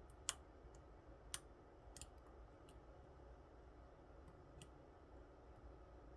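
A few faint, sharp clicks spaced irregularly: a lock pick and tension tool working the pins of an Assa Twin 6000 euro cylinder during single-pin picking.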